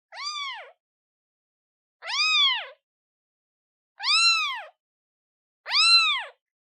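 Day-old newborn kitten meowing for its mother: four short, high calls about two seconds apart, each rising and then falling in pitch.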